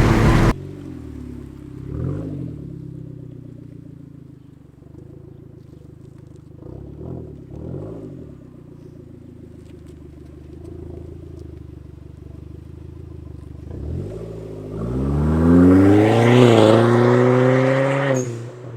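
Hyundai Genesis Coupe's 2.0-litre turbocharged four-cylinder engine on a test drive with its newly replaced fuel pump. It runs quietly with a few short swells, then about fifteen seconds in it accelerates hard, its pitch climbing, dipping once at a gear change, climbing again, and falling away just before the end.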